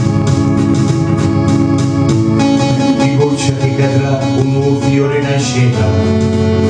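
A man singing into a microphone over a backing track led by electronic organ holding sustained chords; the chord changes near the end.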